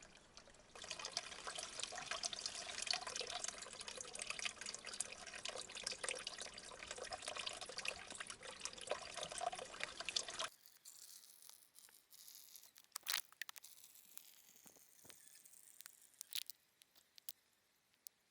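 Small mountain stream trickling and splashing, full of fine crackles. It cuts off suddenly about ten seconds in, leaving a faint hiss with a few scattered sharp clicks and taps.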